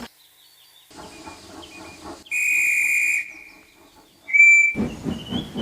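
Steam locomotive whistle blowing one long steady blast, then a short second blast. Faint steam chuffing can be heard before it, and loud rhythmic chuffing starts near the end as the engine works.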